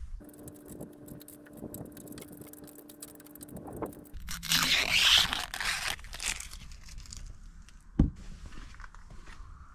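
Hands handling a newly bolted-on tractor cab lamp: small scraping and clicking noises, then a louder crinkling, rustling stretch in the middle, and one sharp knock near the end.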